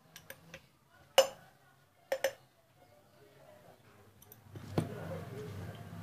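Metal wrench clinking against the screw and bracket of a ceiling fan motor as the screw is loosened: a few light clicks, a loud sharp clink about a second in, a quick double clink about two seconds in, and another near the end. A low steady hum comes up in the last second or so.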